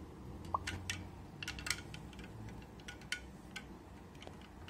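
Ice cubes clinking against the sides of a plastic mug of water as a cat paws at them: a scatter of light, sharp clicks over a low steady hum.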